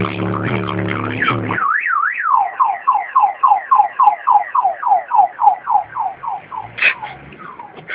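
Rap music with heavy subwoofer bass cuts off about a second and a half in. A car alarm then sounds, set off by the bass: two up-and-down sweeps, then a rapid falling warble about four times a second that stops near the end, followed by a short sharp chirp.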